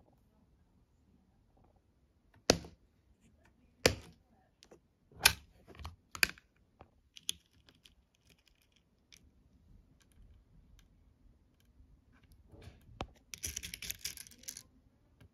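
Beads and a clear plastic bead organizer box handled by fingers: a few sharp separate plastic clicks, then near the end a short burst of small beads rattling and clicking as fingers dig through a compartment.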